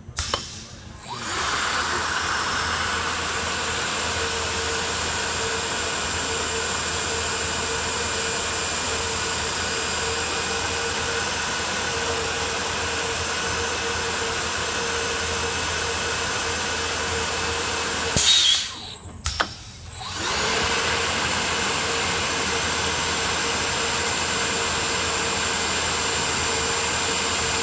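Hebo CNC drilling machine running a flow-drilling cycle on a metal tube: a steady machine noise with a held tone, as the spinning friction drill heats and pierces the tube wall. About two-thirds through, the noise cuts out for about two seconds with two sharp clacks, then starts again.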